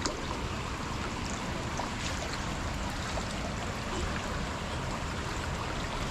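Floodwater running and trickling in a steady wash, with a few faint small splashes.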